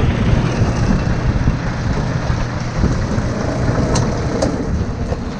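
Strong wind buffeting the microphone: a steady, gusting rumble, with a couple of short clicks about four seconds in.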